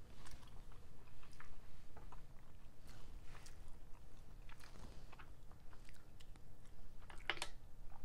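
Close-miked chewing of mussels, with scattered small clicks and smacks as mussel shells are picked from the tray.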